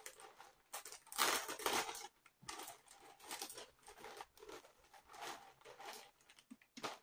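Clear plastic packaging bag crinkling in irregular rustles as it is handled and opened to take out a kitchen towel.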